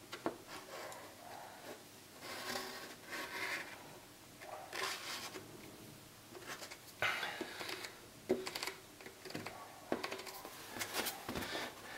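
Marker pen scratching on a polyethylene sheet as it is drawn around the flange of a flush-mount rod holder, in a series of short separate strokes, with a few light clicks and taps.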